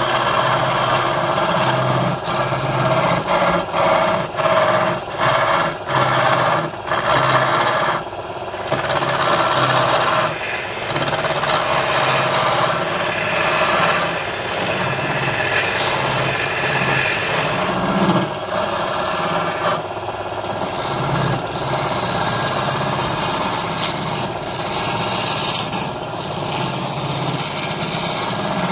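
A wood lathe spinning a cylindrical blank while a hand-held turning chisel cuts into it: a loud, continuous cutting noise over the lathe's running. The cut breaks off briefly many times in the first ten seconds, then runs on steadily.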